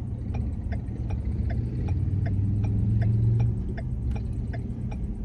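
Vehicle engine idling, with an indicator clicking steadily about two and a half times a second; the low engine hum swells for a second or so in the middle.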